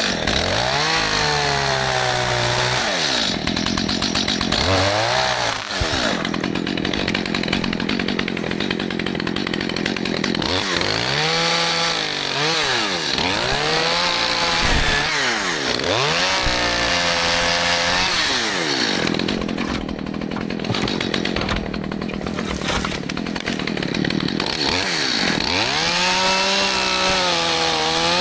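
Stihl MS211 two-stroke chainsaw revving and cutting through small trees. Its pitch climbs and falls again and again, and it runs rougher and lower while the chain is in the wood.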